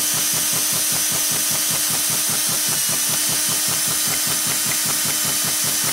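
Electric drill turning the roller cam of a hand-built diesel unit-injector test rig (GM HV6 nozzle on a Yanmar 186F injection pump) at about 450 rpm. An even ticking of about seven or eight strokes a second from the cam and pump plunger sits over the drill motor's steady whine, with the injector pumping fuel at a low throttle setting.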